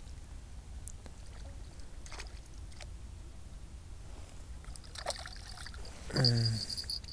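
Quiet riverside ambience: a steady low rumble with faint water sounds and a few light clicks. About six seconds in comes a short low grunt-like sound falling in pitch, followed by a thin, high, steady tone.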